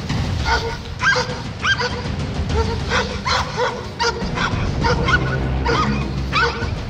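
A dog barking at a polar bear, about two sharp barks a second, over background music.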